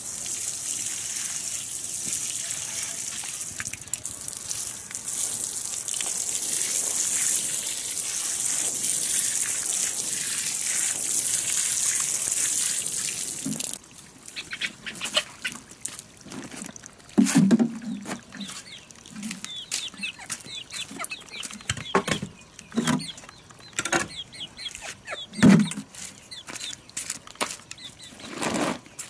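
Water spraying steadily from a watering can's rose onto a potted plant and soil, cutting off suddenly about fourteen seconds in. After that come scattered short knocks and handling noises, with occasional clucks from free-ranging chickens.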